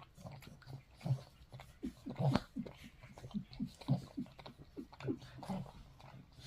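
A dog licking: an irregular run of wet laps and smacks, a few a second.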